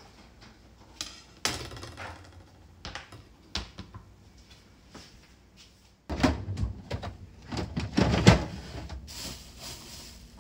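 Kitchen handling sounds: light clicks and knocks of things being moved about, then busier clatter as a refrigerator drawer is slid open and bagged food inside is handled. The loudest knock comes about eight seconds in.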